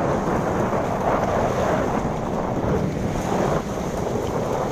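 Strong wind blasting across the microphone in gusts, a loud, steady rumbling rush, with rough sea and waves beneath it.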